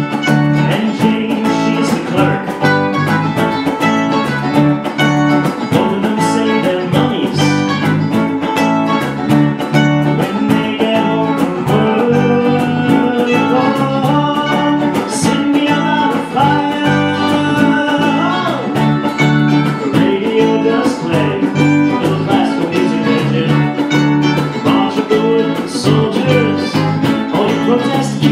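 A small band playing live: two guitars, electric bass and cajón, with the cajón keeping a steady beat under the strummed and picked guitar parts.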